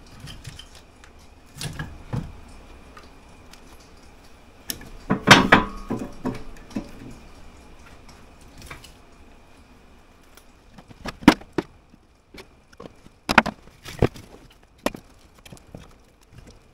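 Knocks and clanks of wood and metal as a cast-iron wood stove is handled and loaded to be lit. There is a flurry of knocks about five seconds in, then a few single sharp clanks in the second half.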